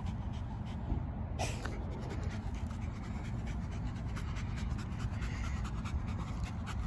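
A dog panting with a rubber ball held in its mouth, over a steady low rumble.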